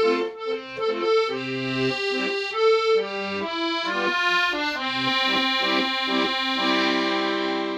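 Accordion playing a melody over chords and bass in sustained, reedy notes, closing on a long held chord near the end.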